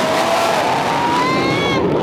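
F-35 fighter jet flying past overhead: a loud jet roar with an engine whine that rises slightly in pitch toward the end.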